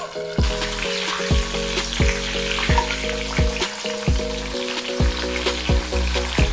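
Cornflour-coated corn kernels deep-frying in hot oil in a kadhai, sizzling with spitting oil, and a slotted spoon stirring them. The sizzle grows louder about half a second in as the lid comes off the pan.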